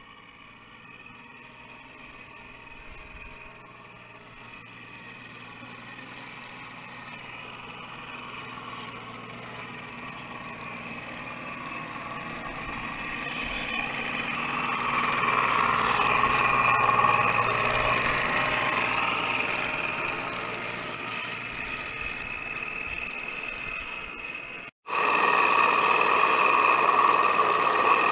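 Remote-controlled model tank's drive motors and gearing whining steadily as it drives, growing louder as it approaches. A cut about 25 seconds in brings the whine in suddenly louder and close up.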